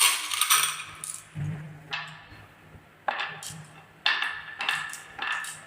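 Marbles clattering down a wooden marble run: a series of sharp clacks and clinks, about six or seven separate bursts, each trailing off as the marbles roll on.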